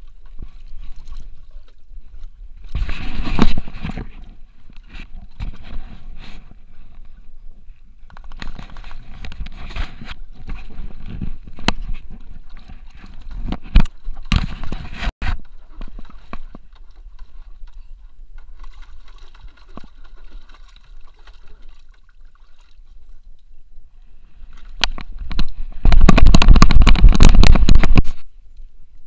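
Handling noise from an action camera strapped to a French Bulldog's harness: scraping, bumping and rustling as the dog moves. Near the end comes a loud stretch of rubbing noise lasting about two seconds.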